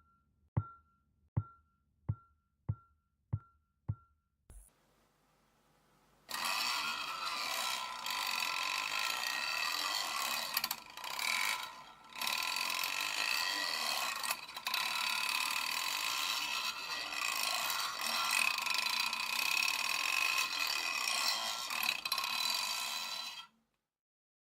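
Magnets rattling between two plexiglass sheets, amplified through a djembe drum head. First comes a series of evenly spaced clicks, each with a short ring, about one every 0.7 seconds. After a short pause comes a continuous loud buzzing rattle that cuts off suddenly near the end.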